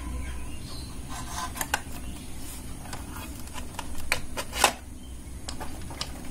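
Scattered small clicks and knocks of plastic and cardboard as a plastic wheel bogie is pressed into place under a cardboard model locomotive body, with a sharper click after about four and a half seconds.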